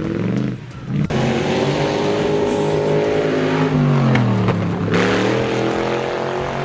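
Toy RC crawler car running: a steady motor whine whose pitch dips and then climbs back up about four to five seconds in, as it slows and speeds up again.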